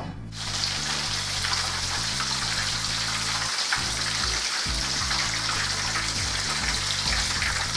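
Oil on full heat sizzling steadily in a frying pan as breaded mozzarella sticks fry, starting just after the first stick is lowered in.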